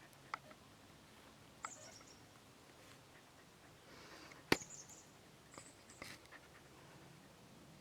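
A dog shifting about in her kennel: scattered faint clicks and taps with a few brief high squeaks, and one sharp click about four and a half seconds in.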